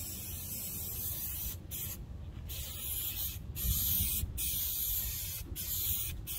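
Aerosol can of spray adhesive hissing as glue is sprayed across a truck headliner board, in a run of sprays broken by several short pauses, one of about half a second about two seconds in.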